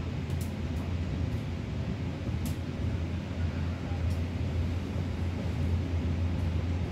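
Diesel-hauled Lokal Merak passenger train running between stations, a steady low rumble from the running gear and track. A few faint clicks sound over it.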